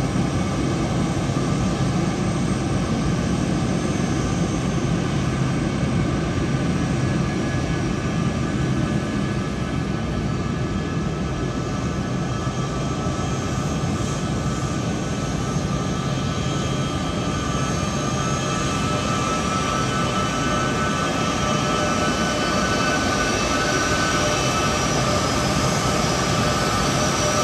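Boeing C-17 Globemaster III's four turbofan jet engines running with a steady rush. A whine grows clearer in the second half.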